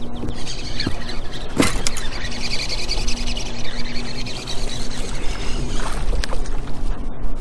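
Fishing reel being cranked to bring in a small largemouth bass, a steady whir from about half a second in to about six seconds. There is a sharp knock about a second and a half in, over a low rumble of wind on the microphone.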